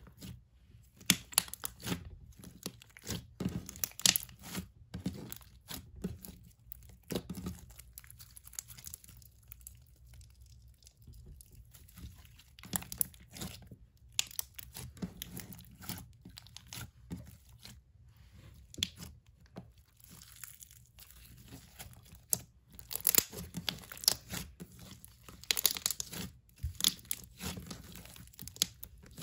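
Clear blue Elmer's slime with music-note confetti squeezed, poked and stretched by hand: clusters of small sharp clicks and crackles from the slime, loudest a few seconds in and again near the end, with quieter stretches between.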